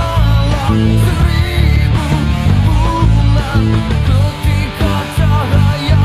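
A rock band recording with singing, with an electric bass played fingerstyle along with it, its notes strong and steady in the low end.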